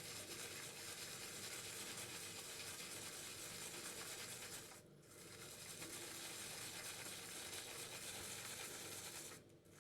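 Shaving brush swirling and building lather from a vegan shaving soap, a steady bristly rustle with brief pauses about five seconds in and near the end.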